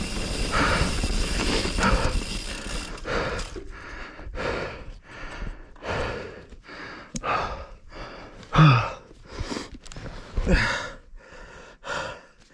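Mountain biker breathing hard after a descent: heavy gasping breaths at about one a second, two of them with a short voiced groan. A steady rushing noise fills the first few seconds, then stops.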